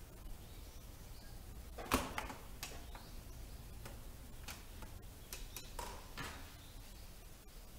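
Irregular light clicks and knocks from someone walking and handling a camera in an empty room, the loudest about two seconds in, over a faint low hum.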